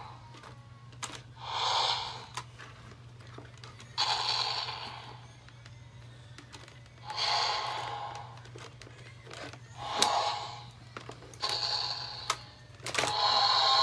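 Mattel Jurassic World Thrash 'N Throw T-Rex toy playing its electronic roar through a small speaker: a series of roars about a second long, every two to three seconds, with a longer roar starting near the end. Sharp clicks from the toy's plastic body and mechanism come between the roars.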